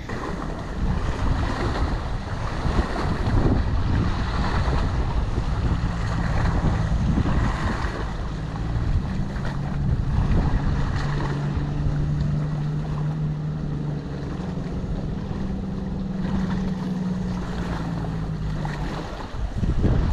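Wind buffeting the microphone over small waves on open water, a dense rumbling noise. A steady low drone comes in around the middle and fades out near the end.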